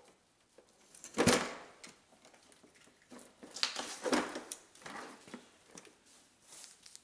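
Handling noise as tools and plastic parts of a tool kit are moved about: rustling and light clattering, with a louder burst about a second in and another cluster around four seconds.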